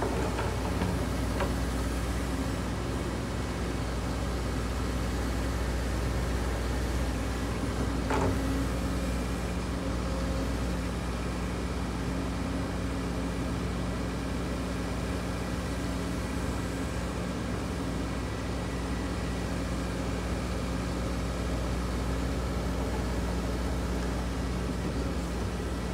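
Case CX210D excavator's diesel engine running steadily at a low, even idle, with a single short knock about eight seconds in.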